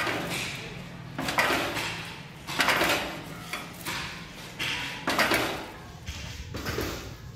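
Stainless steel strips being spot-welded onto a round stainless disc on a pedestal spot welder. There are about six sharp, crackling bursts, roughly one every second, with metal clatter, over a steady low hum.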